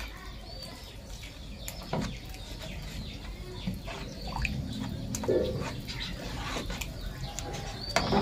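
Metal spoon stirring a watery leaf-juice mixture in an enamel basin: wet sloshing with occasional light clinks against the bowl. Birds chirp in the background.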